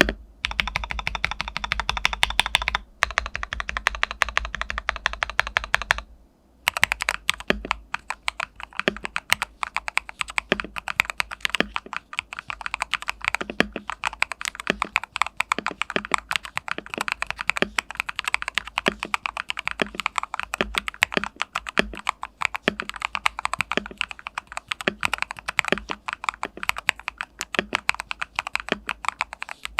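Fast typing on a mechanical keyboard with lubed and filmed Aflion Blue Sky linear switches: a dense run of keystroke clacks, pausing briefly about three seconds in and again about six seconds in.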